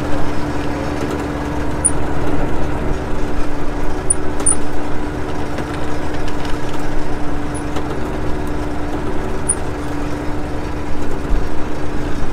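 Fishing boat's engine running steadily, a low rumble with a constant hum.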